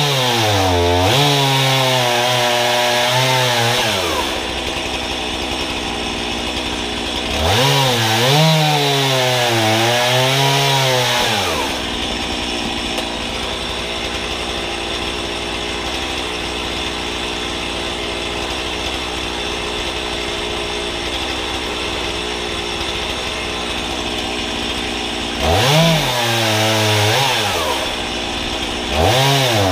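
Two-stroke chainsaw mounted on a homemade guillotine frame, revving to full throttle and cutting through logs in four bursts of a few seconds each, its engine note dipping and wavering as the chain bites into the wood. Between the second and third cuts it idles for about a dozen seconds.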